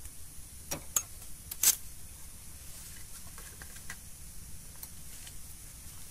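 Handling noise close to the microphone: three sharp clicks and taps in the first two seconds, the loudest about a second and a half in, then a few fainter ticks. A steady high hiss runs underneath.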